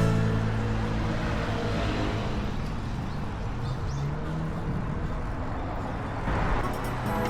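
A motor vehicle's engine runs close by with a low, steady hum that shifts pitch about halfway through, over road and traffic noise. The noise swells briefly near the end.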